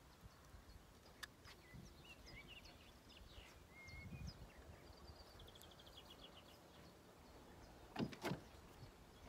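Near silence: faint outdoor ambience with scattered faint, high bird chirps, and two short soft knocks about eight seconds in.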